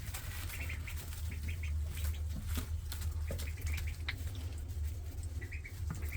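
Ducklings giving a few short bursts of soft peeping, with scattered light clicks and taps from their bills and feet, over a steady low hum.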